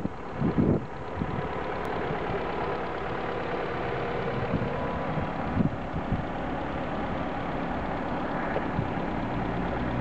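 Honda D17A2 1.7-litre four-cylinder engine idling steadily with a knock ("стук"). The knock appeared after a valve adjustment, and the owner is unsure whether it is normal.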